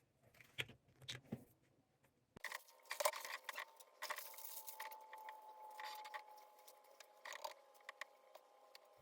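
Faint handling noises of hands working wig adhesive over a stocking cap: scattered small clicks, taps and light scraping, busier after the first couple of seconds, with a faint steady tone in the middle.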